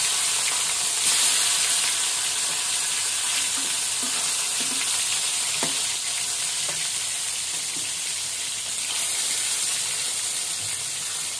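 Rohu fish steaks sizzling steadily as they shallow-fry in hot oil in a pan, with a couple of faint clicks around the middle.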